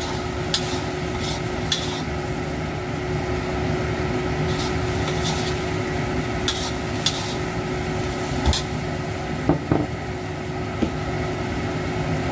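Metal spatula stirring and tossing rice vermicelli in a stainless steel wok over a steady sizzle, with about a dozen sharp clanks of the spatula against the wok.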